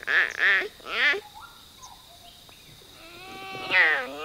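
Clouded leopard calling: three short pitched calls in the first second, then a longer call near the end whose pitch wavers up and down.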